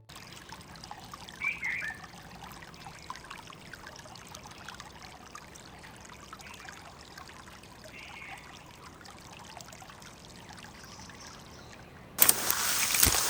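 Faint steady outdoor ambience with two brief bird chirps, about a second and a half in and again about eight seconds in. A sudden loud rush of noise starts about a second before the end.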